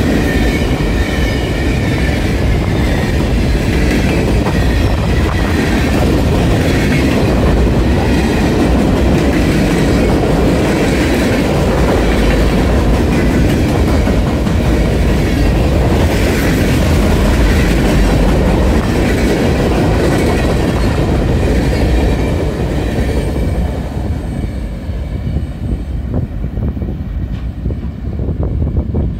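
Freight train rolling past close by: a steady loud rumble of steel wheels on the rails with a thin high squeal over it. It grows quieter about 23 seconds in.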